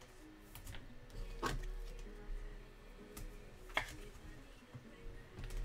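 Trading cards being handled close to the microphone, with two short sharp slides or taps, about a second and a half and nearly four seconds in. Faint background music and a low hum run underneath.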